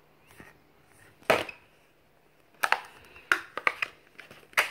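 Samsung Galaxy J3 Emerge phone being handled: a single knock about a second in as it is laid down, then a quick series of sharp plastic clicks as the snap-on back cover is prised off.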